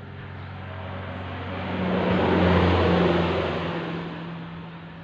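A road vehicle passing by: its noise grows louder to a peak about two and a half seconds in, then fades, over a steady low hum.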